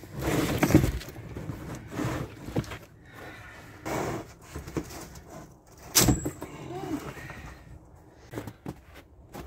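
A coiled steel sawmill bandsaw blade is uncoiled by hand, the springy band scraping and rustling against cardboard. There is a loud rustle in the first second and a sharp clack about six seconds in.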